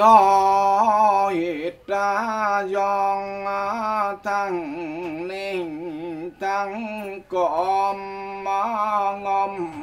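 A Mường ritual master chanting mo, the Mường ritual recitation, solo in a male voice. He holds long notes, wavers them in ornaments, and breaks the phrases with short pauses.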